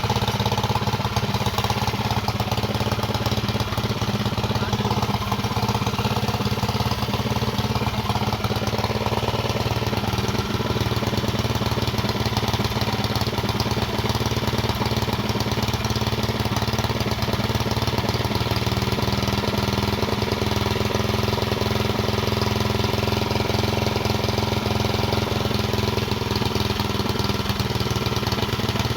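Yamada VR460 engine idling steadily, an even running note that holds without change of speed.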